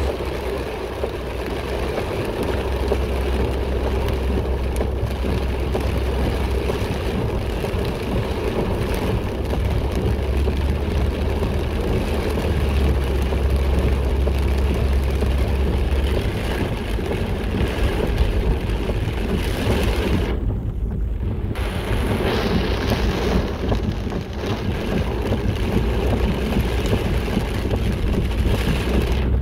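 Heavy rain falling on a moving car's windshield and roof, mixed with the car's road and engine noise and a deep steady rumble, as heard inside the cabin. The hiss briefly drops away for about a second a little past two-thirds of the way through.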